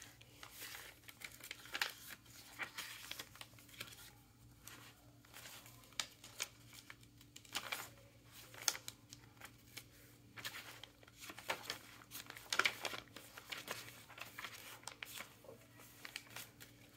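Soft, intermittent rustling and flicking of paper as the coffee-dyed pages and cardstock of a handmade sewn-signature journal are turned and handled by hand.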